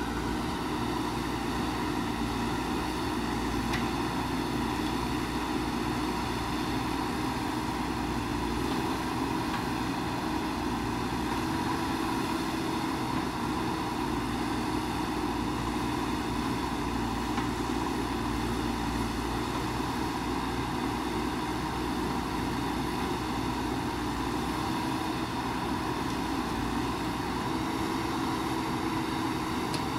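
JCB backhoe loader's diesel engine running at steady working revs while the backhoe arm digs soil and swings it into a dump truck.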